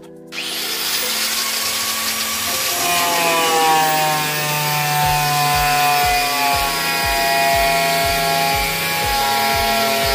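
A hand-held electric power tool runs and cuts into a blue plastic drum, its motor whine rising and falling as the blade works through the plastic. Background music with a steady low beat plays under it from about halfway in.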